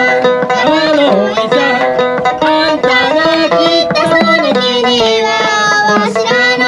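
Upbeat Okinawan-style folk music: a handmade sanshin plucking a lively tune over hand-drum percussion.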